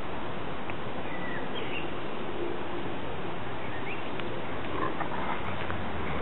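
A few faint, short bird chirps over a steady outdoor hiss.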